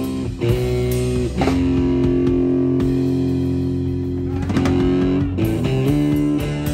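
Live rock trio playing an instrumental passage: electric guitar through an amp holding long, sustained notes over bass guitar and drum kit, the guitar note changing every second or few.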